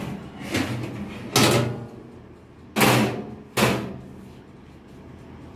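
Four clunks from a countertop electric oven as its hinged glass door is opened and handled, the last three the loudest.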